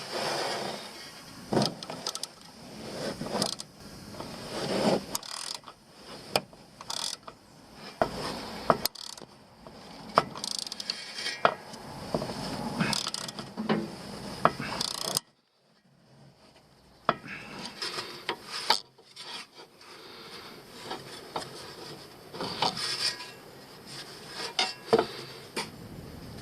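Hand ratchet wrench with a 17 mm socket clicking through repeated strokes, with metal clinks and scrapes of tools against the car's steering parts; the ratcheting stops briefly about fifteen seconds in.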